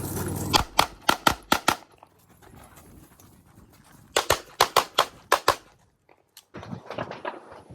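Competition handgun firing two rapid strings of shots. About six shots come in just over a second, then after a pause of roughly two and a half seconds another seven or so follow as fast, with a few fainter shots near the end.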